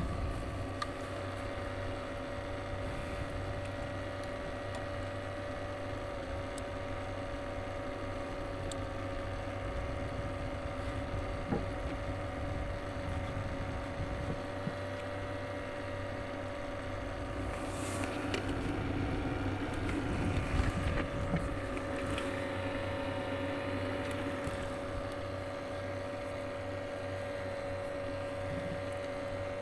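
A boat engine running at a steady pitch, a constant drone over a low hum, with a few light knocks around twenty seconds in.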